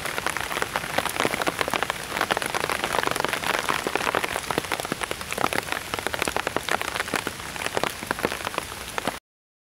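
Rain pattering on a survival blanket shelter: a dense, steady spread of small raindrop ticks. It cuts off suddenly about nine seconds in.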